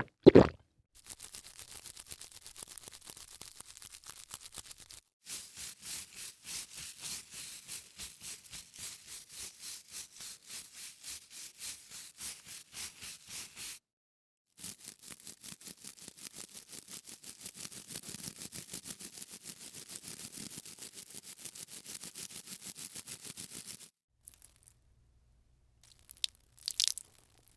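Fingernails scratching skin: quick, even scraping strokes, about two a second, in three runs with short silences between them. A brief loud sound right at the start.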